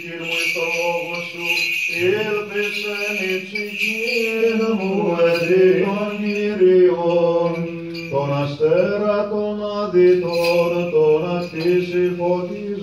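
Byzantine chant: a male cantor sings a slow, melismatic hymn in long, gliding, ornamented notes over a steady low held drone (the ison).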